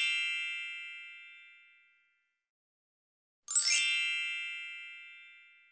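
A bright chime sound effect rings twice, about three and a half seconds apart, each ring fading away over about two seconds.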